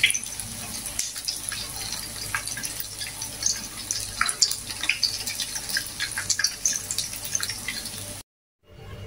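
Tofu fritters deep-frying in hot oil in a wok: a steady sizzle with many scattered sharp pops and crackles, cutting off abruptly near the end.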